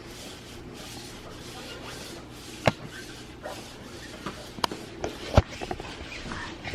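A few sharp clicks and knocks, spaced a second or two apart, over a low steady room hum.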